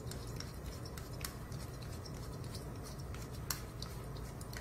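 Faint scratching and a few sharp clicks from a hand driver screwing a suture anchor into a foam bone model, over a low steady hum.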